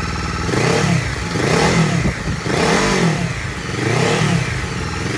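Honda CB500X parallel-twin engine in a CRF500L build, running on its first start-up and revved four times. Each throttle blip rises and falls in pitch and drops back to idle between.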